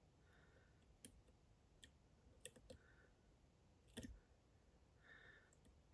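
Faint, irregular clicks of a dimple pick tapping and lifting pins inside a DOM IX Saturn dimple lock, about five in all, the loudest about four seconds in.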